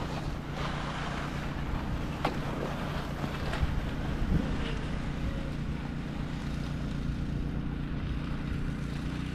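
An engine running steadily with a low, even hum, with a few sharp knocks a couple of seconds in.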